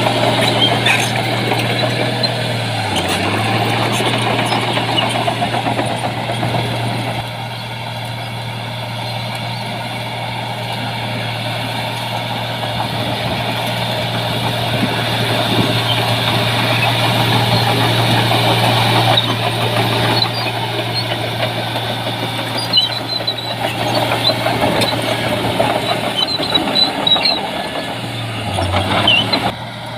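Heavy earthmoving machinery's diesel engine running steadily under work. Its low tone dips briefly about three seconds in and again near the end, with rough mechanical rattle over it.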